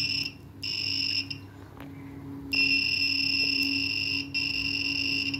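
Arduino-driven buzzer on a breadboard beeping as its push-button keys are pressed: a short high-pitched beep, another about half a second later, then a longer steady tone from about two and a half seconds in that breaks off briefly and resumes near the end.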